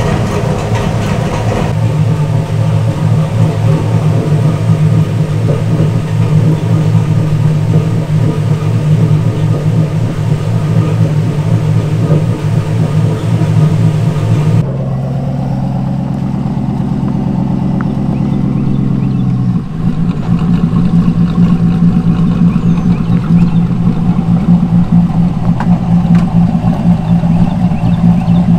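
Turbocharged 5.3-litre LS V8 idling with a rapid, uneven pulse from its stage 2 cam, in gear so that the freshly installed Turbo 400 turns the rear wheels. The engine note changes abruptly about halfway through and again a few seconds later.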